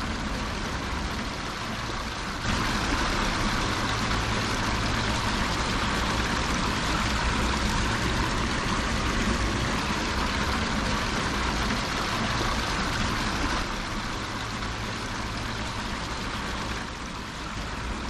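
Water from a strong-flowing spring running and splashing out of an outlet into a concrete basin. It is loudest from a few seconds in until a little past the middle, over a steady low rumble of road traffic.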